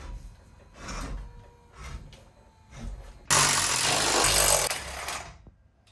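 A few short knocks and clatters, then a power tool runs for about two seconds and stops, undoing the stern drive's mounting bolts.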